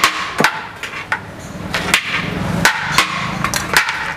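Metal serving ladle knocking against the rim of a large steel biryani pot as portions are scooped out. It makes a quick, irregular run of sharp metallic clanks, about two or three a second: the 'tokku tokku' sound of a biryani counter.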